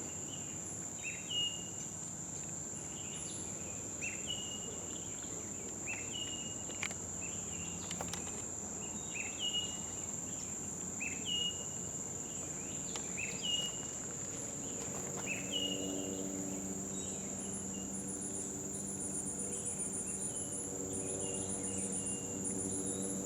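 Steady high-pitched drone of crickets and other insects. For roughly the first fifteen seconds a short call repeats about every second and a half, and from about fifteen seconds in a low steady hum joins.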